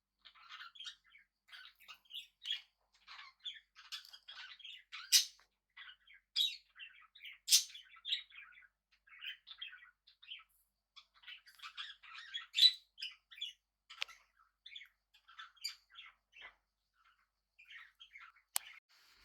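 Small pet parrots, budgies and cockatiels, chattering: a busy stream of short chirps and warbles, broken by a few louder, sharp squawks.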